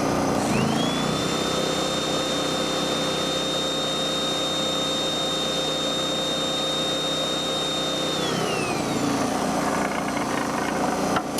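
Vacuum cleaner switched on, its motor whine rising quickly and holding steady, then switched off about eight seconds in and winding down. Under it the Hyundai EFI2500SEI inverter generator that powers it runs steadily.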